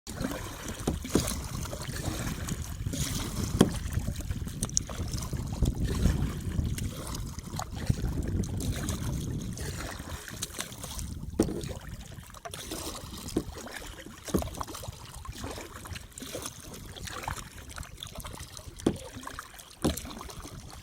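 Kayak paddle strokes splashing and dripping in lake water, with irregular sharp knocks and splashes over a low rumble that eases after the first half.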